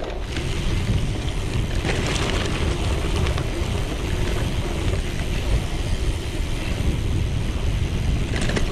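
Wind buffeting a GoPro action camera's microphone while riding a gravel bike over a rough sandy trail, mixed with tyre noise and the bike rattling over the bumps.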